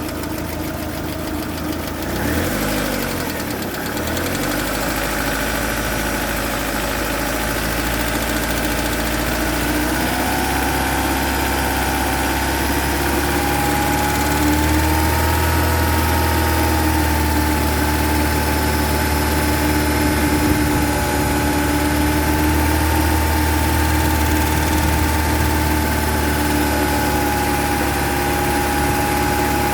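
Chevrolet F18D3 1.8-litre four-cylinder engine idling, its speed rising slightly about ten seconds in. The owner suspects hydraulic lifters that knock on and off, perhaps from too little oil pressure.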